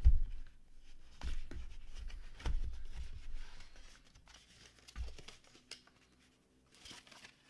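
Handling sounds from a drawer in a cardboard collector's box and a book-style disc case being lifted out of it: a few soft knocks and thumps with rustling between them, fading to faint scuffs in the last couple of seconds.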